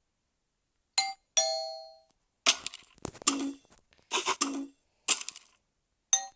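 A run of different doorbell sounds, one after another. About a second in, a two-note ding-dong chime (higher note, then lower) rings out. Several shorter, busier rings with bright metallic overtones follow, and another chime strikes near the end.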